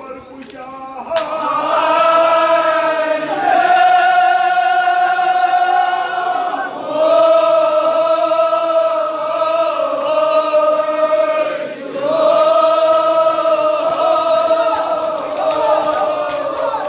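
Kashmiri marsiya, a mourning elegy, chanted in long drawn-out notes with a wavering pitch. It comes in four phrases with short breaks between them.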